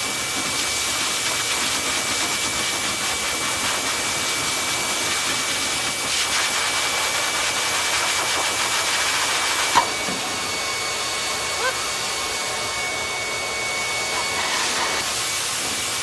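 High-velocity pet dryer running steadily with a rushing hiss of air and a thin motor whine, blowing loose undercoat out of a shedding puppy's coat. A single short sharp click about ten seconds in.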